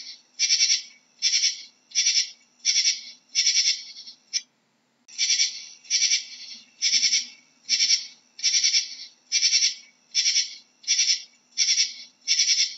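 Katydid calling: a regular run of short, buzzy, high-pitched chirps, about three every two seconds, with a brief break about four seconds in.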